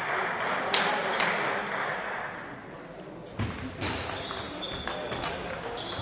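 Table tennis ball clicking off bats and table: two sharp knocks about a second in, then a quick run of knocks in a rally from about halfway, over a murmur of voices in a large hall.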